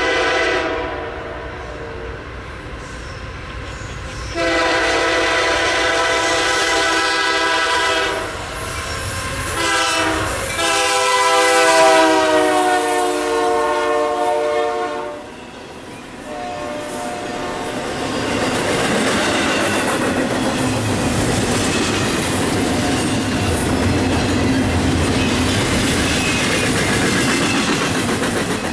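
A freight locomotive's multi-note air horn blows long blasts as the train approaches. Its pitch drops about ten seconds in as the locomotive passes, and the horn stops about halfway through. Then the steady rumble and clatter of the freight cars' wheels on the rails goes on.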